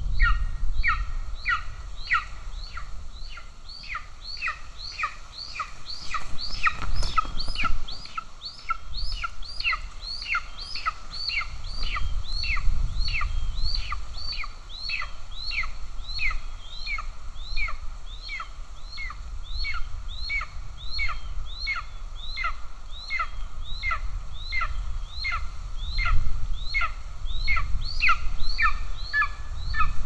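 Golden eagle eaglet food-begging: a long, steady series of short, high, down-slurred calls, about two a second. A low rumble rises and falls beneath the calls.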